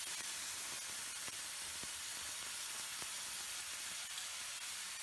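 Wet green paste of raw banana peel sizzling in hot mustard oil in a frying pan, giving off steam: a steady hiss with a few faint crackles.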